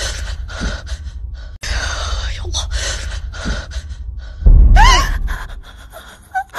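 A person's heavy, gasping breathing, then about four and a half seconds in a sudden loud thud with a short high, wavering cry that fades away.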